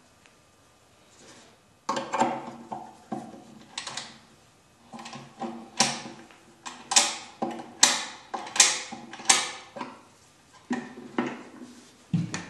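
The key-operated lock of a Singer sewing machine's curved wooden cover being worked: a run of irregular sharp clicks and knocks from the lock and the wooden case, loudest in the middle. The lock is working.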